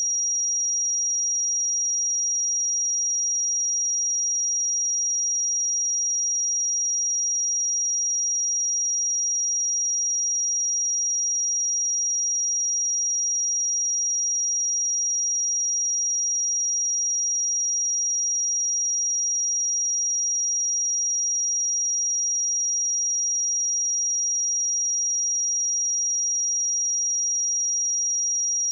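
A pure 5708 Hz sine-wave test tone, a single steady high-pitched whistle-like tone held at constant level.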